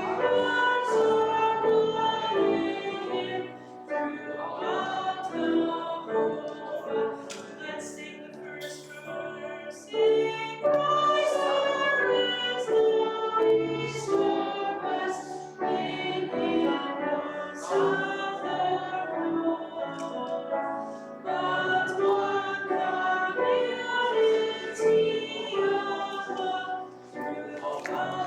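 A group of voices singing a hymn, in sung phrases with short breaths between them.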